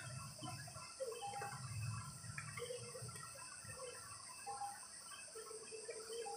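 Low background noise in a pause of a Quran recitation: a faint low hum and a steady high hiss, with faint scattered short sounds.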